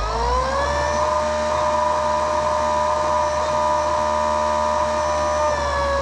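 Golden Motor HPM 10 kW dual-stator PMSM electric motor spinning free on a bench under an EZ-B72800 sinewave controller: a whine of several tones that finishes rising as it spins up, holds steady, then starts falling near the end as the throttle is released and it winds down.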